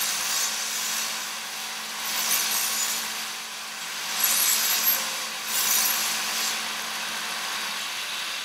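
Delta 1-inch belt sander running with a steady motor hum while the end of a metal rod is pressed against the belt. Three times, harder contact brings up a louder hiss of grinding.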